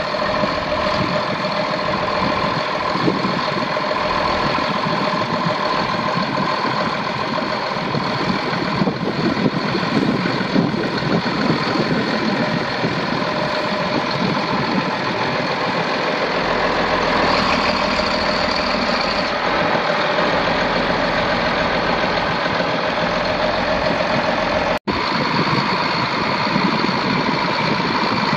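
John Deere 4640 tractor's six-cylinder diesel engine running steadily, with a constant whine above the engine's clatter.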